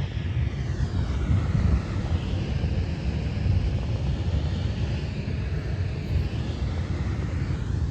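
An aircraft flying over: a steady, low rumble with no clear start or stop.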